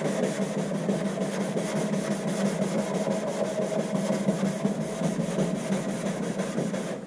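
Scrub pad rubbed hard up and down a white porch post coated with degreaser: a fast, steady scratchy rubbing of several strokes a second, scouring off grime that spraying alone did not lift. It stops suddenly at the end.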